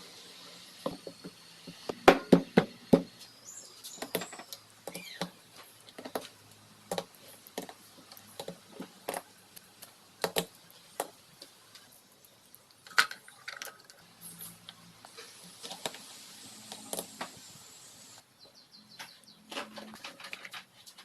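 Irregular sharp metallic clicks and clinks of hand tools and engine parts being handled during an engine rebuild, with a quick cluster of strikes about two seconds in.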